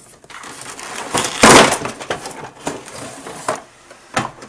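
Cardboard toy box being opened and handled, its flaps and insert scraping and crackling, with one loud burst of cardboard noise about a second and a half in.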